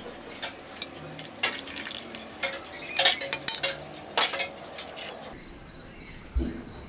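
Dishes and cutlery clinking: a scatter of sharp clinks and knocks, the loudest few about three seconds in.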